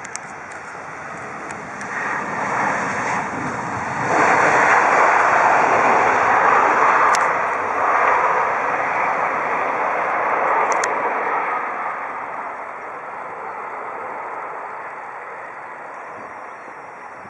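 Airbus A319-100 jet engines after touchdown: a rushing jet noise that grows much louder about four seconds in and holds for several seconds, typical of reverse thrust, then fades as the airliner slows and rolls away down the runway.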